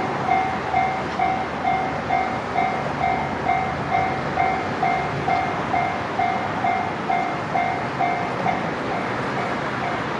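Japanese railway level-crossing warning bell ringing in a steady beat about twice a second, over the noise of a passing train. The ringing grows fainter near the end.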